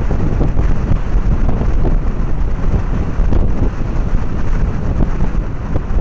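Wind buffeting the microphone: a loud, gusty low rumble.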